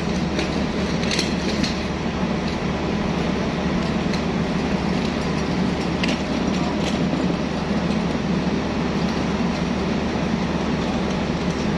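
Diesel locomotive running with a steady low rumble, with a few faint metallic clanks.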